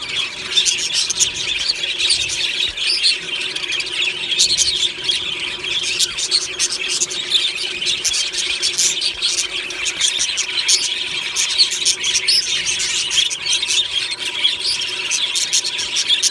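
A flock of budgerigars chattering, chirping and squeaking together in a steady, unbroken stream of overlapping calls.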